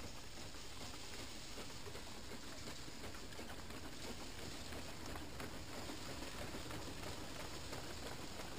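Old wooden threshing machine driven by mules, running and threshing: a steady, dense rattle with many fine ticks as grain bundles are fed in and straw is thrown out the back.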